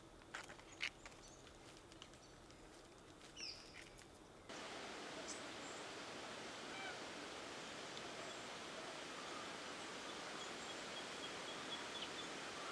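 Forest ambience: a few soft clicks and a short bird chirp, then about four and a half seconds in it changes abruptly to a steady hiss of outdoor background noise with faint, scattered bird calls.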